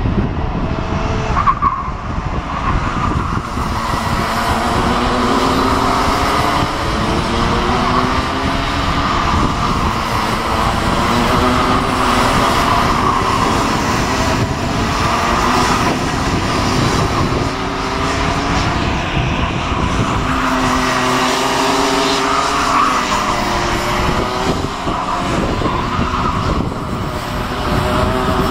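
Several Mini Max racing karts' two-stroke engines running in a pack, their overlapping engine notes rising and falling as the karts accelerate out of and lift into corners.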